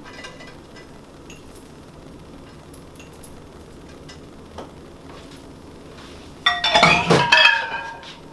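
Kitchenware clattering: a loud clink with a ringing, metallic or glassy tone about six and a half seconds in, fading over about a second. Before it there are only faint small clicks and taps.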